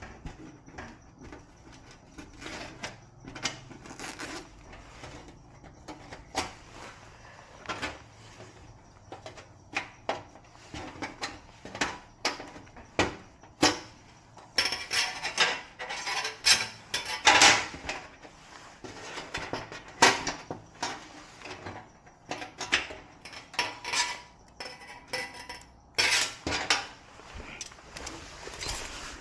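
Irregular clicks, taps and clattering of small hard objects being handled, like tools and small metal or plastic parts being picked up and set down. The clatter grows denser and louder about halfway through, and again near the end.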